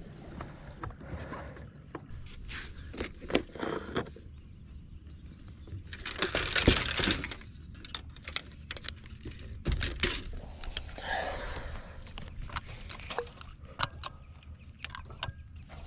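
Handling noises on a boat deck: scattered sharp clicks and taps, with a louder rustling scrape about six seconds in.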